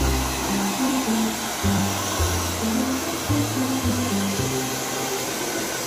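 Hand-held hair dryer blowing steadily on wet dog fur, with background music carrying a low, moving bass line underneath.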